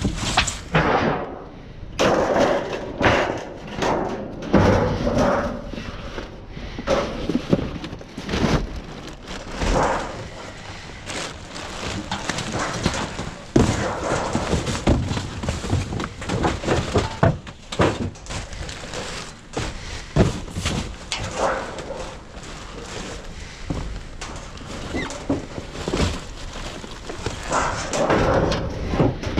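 Rummaging through a dumpster of debris: cardboard boxes shifted and tossed aside, with many irregular thumps, knocks and clatters as wood scraps and sheet metal are moved and pulled out.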